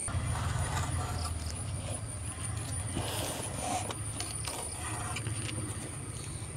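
A steady low rumble like a motor running, with faint crinkling and rustling of a wilted banana leaf being folded and pressed around the rim of a metal pot, over a thin high steady insect drone.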